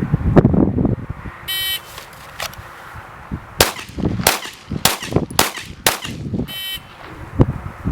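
Shot timer beeps to start, then a Glock 17 Gen 2 9mm pistol fires five quick shots about half a second apart. A second timer beep about five seconds after the first marks the end of the 5-second par time.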